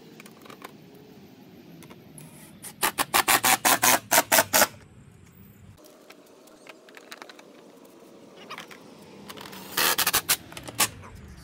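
Hand ratchet clicking in quick back-and-forth strokes, about five a second, as a bolt on a dirt bike's side panel is turned: a run of about ten strokes, then a shorter run of about five near the end.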